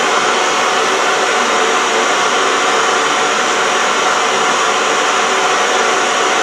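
Old analogue television's static hiss, steady and unbroken, as from a set tuned between channels.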